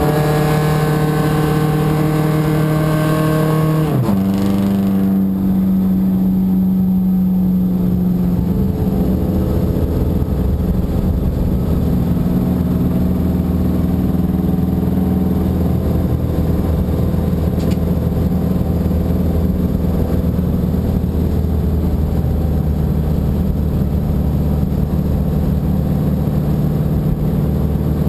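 Race car's engine, heard from inside the car, running at steady high revs, then dropping sharply in pitch about four seconds in as the revs come down, and running on at steady lower revs with a rougher rumble.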